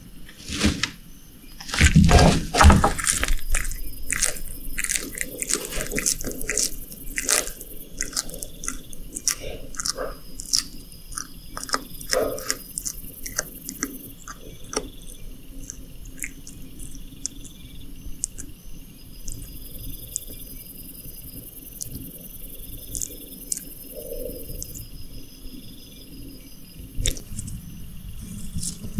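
Bearded dragon chewing a small lizard, with a run of sharp wet crunching clicks. They are densest and loudest in the first several seconds, heaviest about two seconds in, then thin out to scattered crunches.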